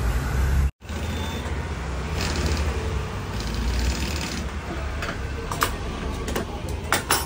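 TYPICAL industrial sewing machine stitching a vinyl scooter seat cover in two short runs, with a few sharp clicks near the end, over a steady low hum.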